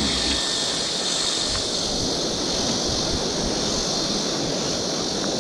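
Steady, even rush of a stream's flowing water.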